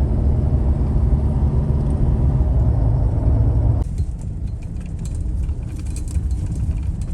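Car driving, with steady low road and engine rumble. About four seconds in, the sound drops abruptly to a quieter rumble with scattered light crackles.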